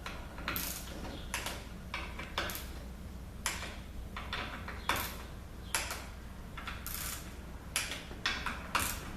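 Hand tool tightening the bolts of a ZF6HP26 transmission valve body: a series of irregular sharp metallic clicks, roughly one or two a second.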